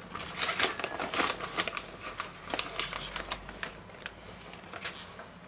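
Plastic vacuum-seal bag crinkling and rustling as marinated pork steaks are pulled out of it, with many small sharp clicks and crackles that thin out and grow quieter in the last couple of seconds.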